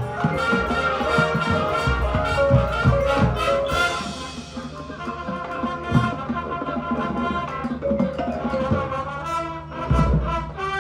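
Marching band playing: brass holding chords over drums. It eases off a little about four seconds in, with a heavy low drum hit near the end.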